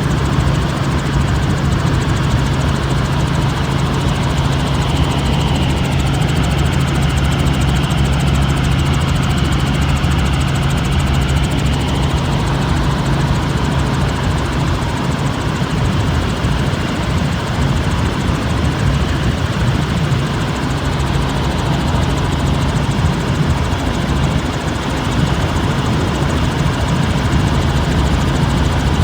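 Helicopter in flight: steady, loud engine and rotor noise with a strong low hum, unchanging throughout.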